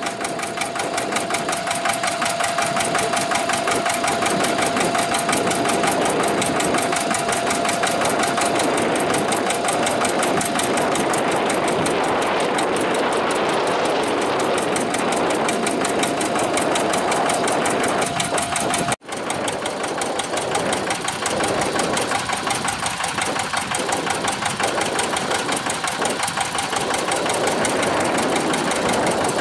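Two-wheel hand tractor's single-cylinder diesel engine running steadily with a fast, even knock, broken by a momentary gap about two-thirds of the way through.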